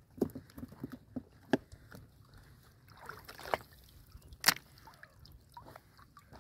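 Water sloshing and dripping as a clump of waterweed is hauled up out of the water beside a small wooden boat, with scattered sharp knocks and splashes; the two loudest knocks come about a second and a half and four and a half seconds in.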